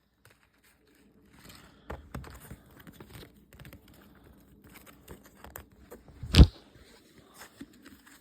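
Handling noise from a plastic toy cube and its packaging: scattered small clicks and rustling, with one sharp knock about six seconds in.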